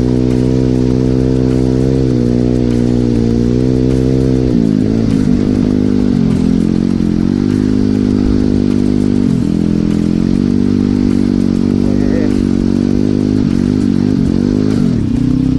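Regulmoto Seven Medalist 150E pit bike's 150 cc single-cylinder four-stroke engine running while riding. It runs steadily at first, then from about four and a half seconds in the revs rise and fall again and again with the throttle.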